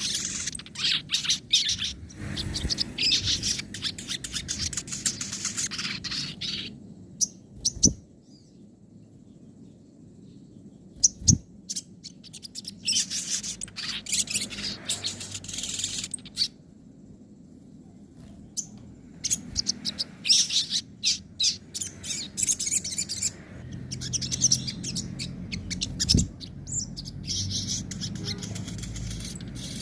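Sogon bird singing in bursts of rapid high chirps and trills, the fast 'nembak' and rattling 'ngobra' song used as master song for training kept songbirds. It falls quiet twice for a few seconds and sings on over a low steady hum, with a few short knocks.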